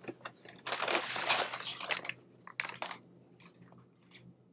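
Brown paper takeout bag rustling and crinkling as a hand rummages inside it, loudest for about a second near the start, then a few lighter, shorter rustles.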